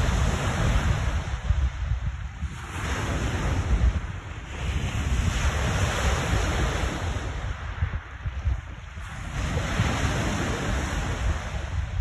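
Lake waves breaking and washing on the shore, the hiss of the surf swelling and falling back every few seconds, with strong wind buffeting the microphone as a steady low rumble.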